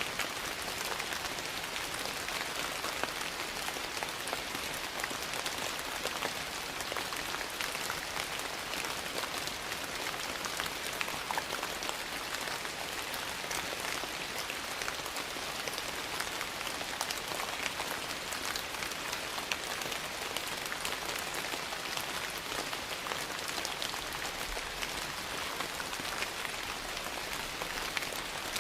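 Steady rain falling on a surface, a dense even patter with fine scattered ticks of single drops.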